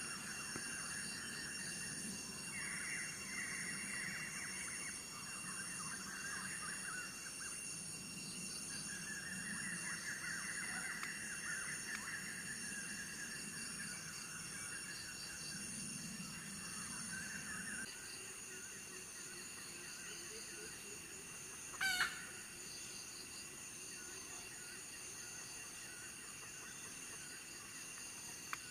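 Rooster crowing several times, the crows drawn out, over a steady chirring of insects. The crowing stops about two-thirds of the way through, and a single sharp click shortly after is the loudest sound.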